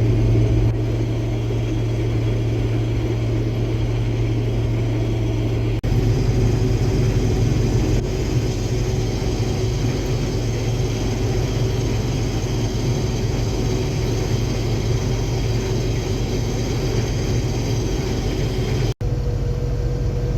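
Case IH Axial-Flow combine running steadily while harvesting soybeans: a low drone of engine and threshing machinery. The sound shifts abruptly about six seconds in and breaks off for an instant near the end.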